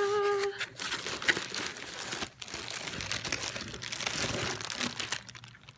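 Crinkling and rustling as a Kipling crinkle-nylon bag is handled and unpacked, a dense run of small crackles that dies away near the end.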